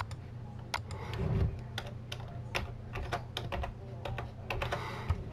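Computer keyboard typing: irregular runs of short key clicks.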